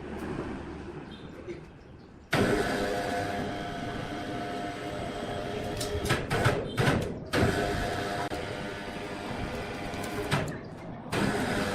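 Sawmill saw running and cutting a log: a loud, dense machine sound with steady whining tones that starts abruptly about two seconds in. There are some knocks partway through and a short dip near the end before it cuts back in.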